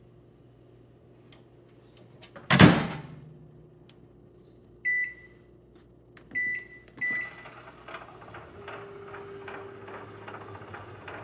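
Toshiba inverter countertop microwave oven: a loud thump, then three short keypad beeps, after which the oven starts running with a steady hum.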